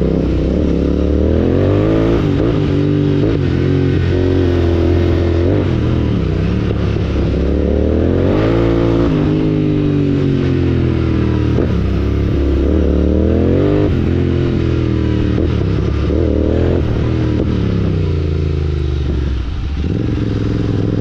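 Royal Enfield Continental GT 650's 648 cc parallel-twin engine running loud through a Red Rooster Stellar aftermarket exhaust while being ridden, its revs climbing and dropping over and over.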